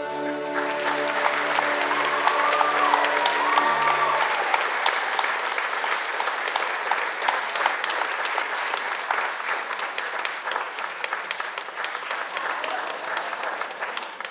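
Audience applauding loudly at the end of a song, as the music's last held chord dies away over the first four seconds.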